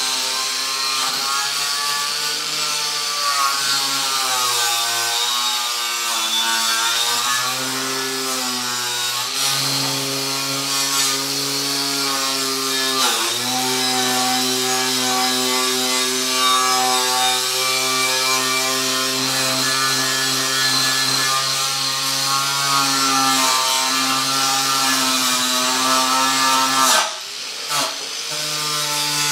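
A small corded electric power tool, held against a metal ammo box, runs with a steady motor whine while it grinds or sands the box. Its pitch sags and recovers several times as the tool is pressed harder and eased off. The sound drops out briefly near the end.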